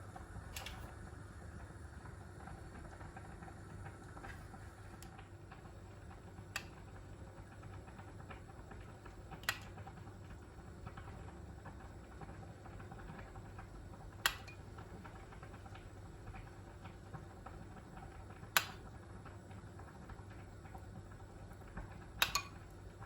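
Sparse sharp clicks or clinks of small objects being handled, about six spread a few seconds apart with a quick double one near the end, over a steady low hum.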